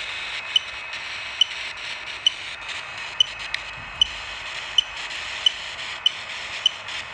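Smartphone ghost-detector app playing a steady static hiss through the phone's speaker, with a short high beep a little more often than once a second.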